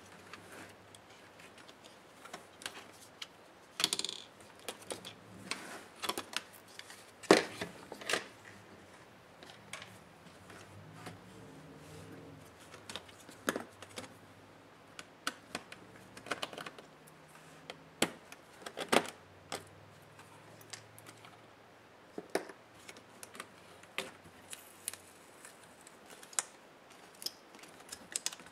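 Irregular clicks, taps and small knocks of plastic and metal laptop parts and hand tools being handled during disassembly, with a few sharper knocks standing out.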